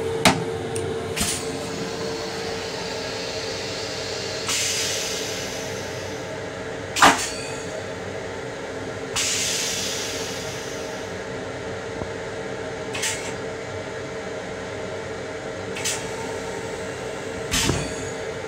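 Inside an M7 electric railcar's restroom: a steady hum, with sharp knocks scattered through, the loudest about seven seconds in, and two hissing swells around five and nine seconds in that each fade over a couple of seconds.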